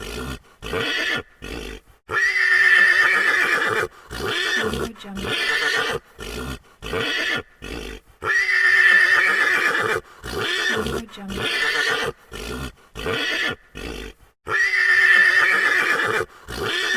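Horse neighing, three long whinnies about six seconds apart with shorter calls between them, repeating in the same pattern.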